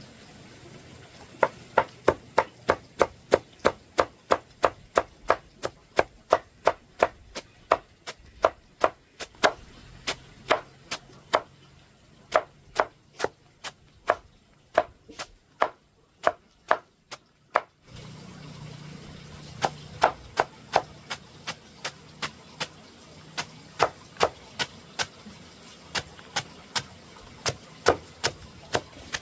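A knife chopping steadily on a cutting board, about three to four strokes a second, with a short pause partway through.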